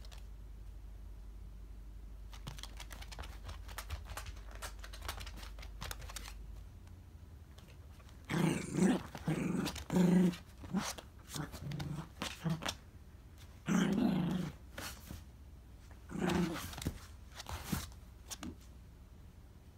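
Miniature dachshund growling in a series of short, low bursts, with faint clicks and scrapes of it scrabbling about before the growls start.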